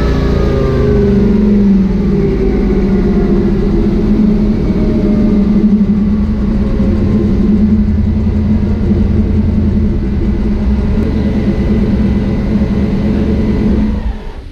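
Twin-turbo 376-cubic-inch LS V8 running on a chassis dyno: the revs fall off in the first couple of seconds, it runs steadily, then cuts out suddenly near the end. The engine is stalling as it comes off the throttle, which the tuner puts down to the throttle shutting too far.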